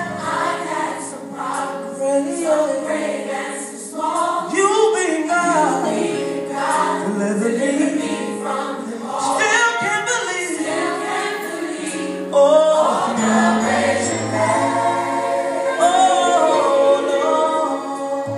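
Gospel song with a choir singing over sustained instrumental backing, accompanying a praise dance.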